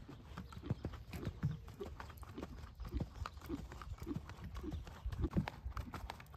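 Hoofbeats of a ridden horse moving over sand arena footing, a steady rhythm of soft thuds.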